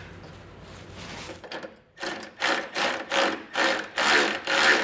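Hand ratchet with a socket snugging a nut on a running-board bracket. About halfway in, the pawl starts clicking in short rasping bursts, about two a second, as the handle is swung back and forth.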